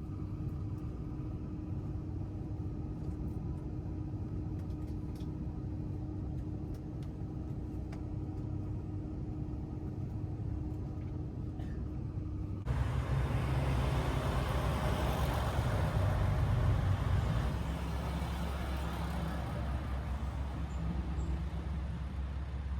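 Diesel railcar engines running at idle, a steady low rumble with a held hum. About 13 seconds in the sound switches suddenly to a louder rushing noise with hiss for several seconds, then settles back to a steady low engine drone.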